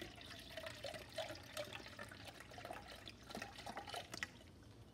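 Chicken broth being poured into a measuring jug, a gurgling, splashing pour that stops near the end.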